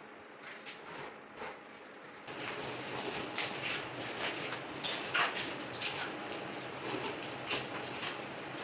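Steel trowel scraping and spreading wet cement mortar on a concrete countertop: a series of short, irregular scrapes and taps that grow louder after about two seconds.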